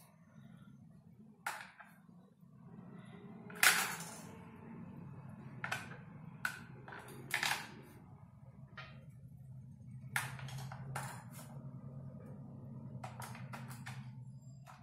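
AA batteries being fitted into the plastic battery compartment in the handle of a Minelab Go Find 60 metal detector: scattered clicks and plastic knocks, the loudest about four seconds in, over a faint steady low hum.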